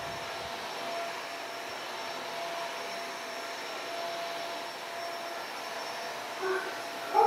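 Stick vacuum cleaner running steadily, with a motor whine over the suction noise. Near the end come two brief, louder sounds.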